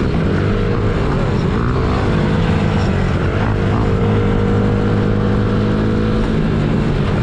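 Honda CRF50's small single-cylinder four-stroke engine running at a mostly steady pitch while being ridden, heard close up from the handlebars; the note dips briefly twice as the throttle eases and picks up again.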